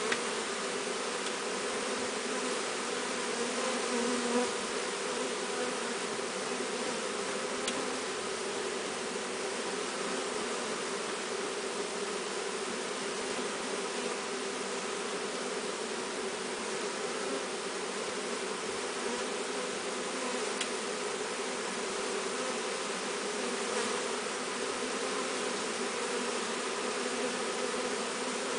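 A honeybee swarm buzzing: a steady, even hum from many wings.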